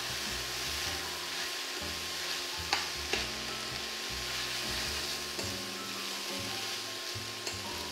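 Green lentils and basmati rice sizzling in olive oil in a stainless steel pan while a metal spoon stirs them, with a couple of sharp clicks of the spoon against the pan about three seconds in.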